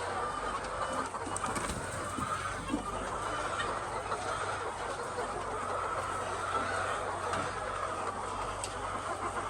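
A large flock of laying hens clucking together, many overlapping calls forming a steady din, over a low steady hum.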